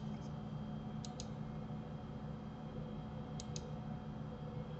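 Computer mouse clicking: two quick double clicks about two seconds apart, over a steady low hum.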